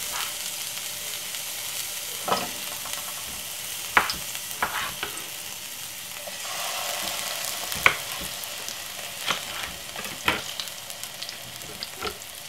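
Tomato pieces sizzling in hot vegetable oil in a frying pan, a steady hiss that swells about six seconds in as more tomato goes in. A few sharp knocks of a knife on a wooden chopping board come through now and then.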